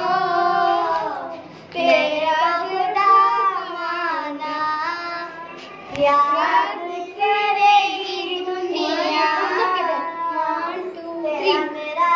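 Young girls singing a song in long, held, wavering phrases, with brief pauses about two and six seconds in.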